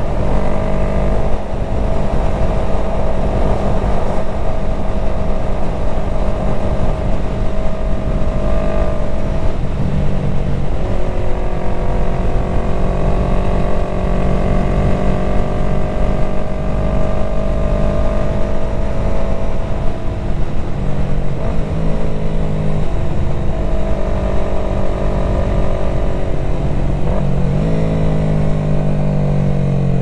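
2020 Yamaha MT-03's 321 cc parallel-twin engine running at steady road speed, with wind rush on the microphone. The engine note wavers at a few points and falls near the end.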